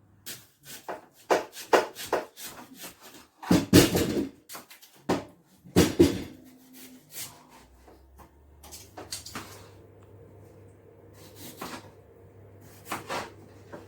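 Irregular knocks and clicks of a knife cutting peeled yam, a few louder knocks among them, thinning out after about seven seconds. A faint low hum comes in about eight seconds in.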